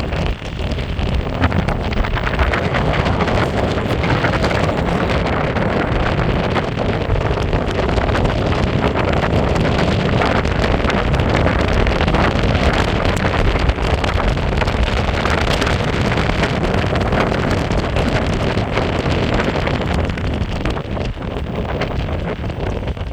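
Steady wind on the microphone over the road rumble of a Meepo Hurricane electric skateboard's honeycomb wheels on pavement while riding.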